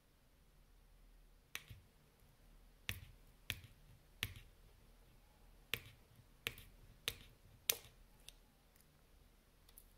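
Cuda Micro Titanium fishing-line scissors snipping clear monofilament line into short pieces. There are about eight sharp clicks at uneven spacing, starting about a second and a half in, then a few fainter ones near the end.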